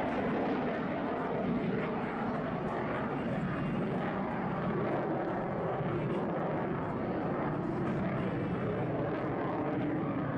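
Lockheed Martin F-22 Raptor's twin F119 turbofan jet engines producing steady jet noise as the fighter climbs vertically in a tail slide manoeuvre.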